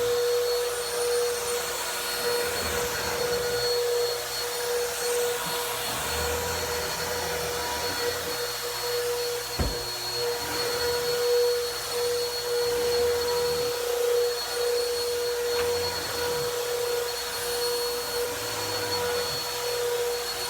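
Vacuum cleaner running on carpet with a steady whining motor tone, its sound swelling and easing every few seconds. There is a single sharp click about ten seconds in.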